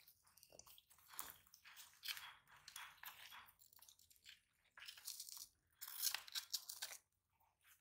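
Sulcata tortoises and a rabbit biting and chewing cucumbers and other vegetables: faint, irregular crunches, busiest in the second half and stopping shortly before the end.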